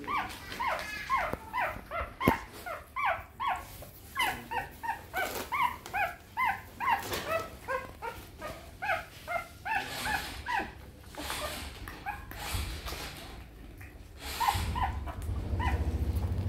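Newborn puppies squeaking and whimpering while nursing: a rapid string of short, high squeaks, each falling in pitch, two to three a second, thinning out after about ten seconds. A low steady hum comes in near the end.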